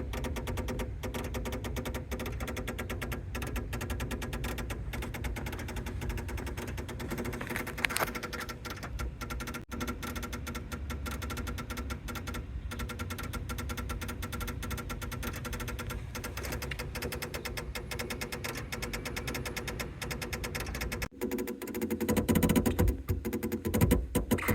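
Abnormal rapid, continuous clicking from around a Mazda3's brakes with the car switched to accessory mode, the engine not running. The sound changes and grows louder near the end.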